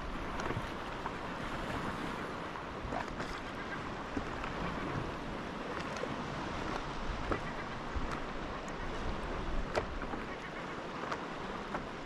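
Steady wash of sea water noise, with a few faint clicks scattered through it.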